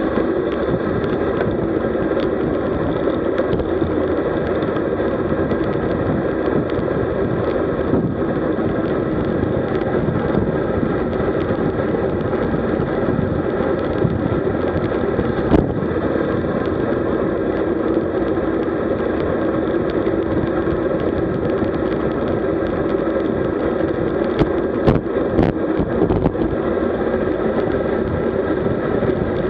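Steady wind rush on the microphone and tyre noise from a road bike ridden at about 55 km/h, with a sharp click about halfway through and a few more clicks near the end.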